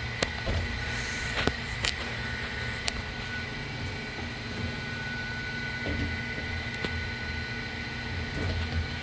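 Steady hum of running shop machinery, with a few sharp clicks and taps in the first three seconds.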